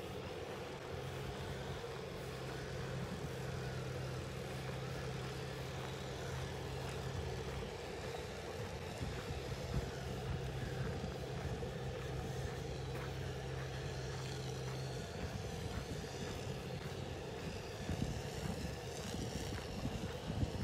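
Outdoor ambience with a steady low engine hum from a distant vehicle or aircraft, which fades out about three-quarters of the way through.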